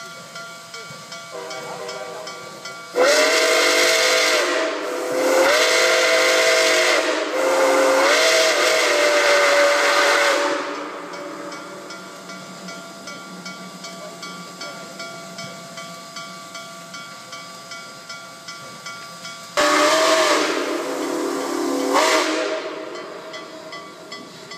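Nickel Plate Road 765, a 2-8-4 Berkshire steam locomotive, sounding its steam whistle: three long blasts, the last the longest, and after a pause of about nine seconds two more, the second one short. Each blast bends up in pitch as it opens. A fast, steady pulsing carries on between the blasts.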